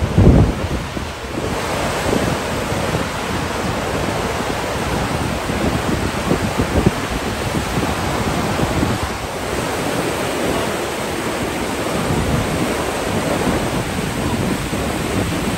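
Floodwater rushing steadily through the open gates of a river weir, with wind buffeting the microphone in low gusts and a loud low bump at the very start.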